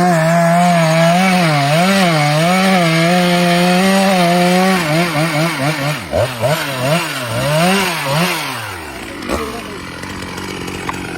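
Chainsaw engine at high revs cutting through kapok wood, its pitch wavering under the load of the cut. About five seconds in the revs swing up and down several times, then fall away near nine seconds, leaving a quieter, even noise.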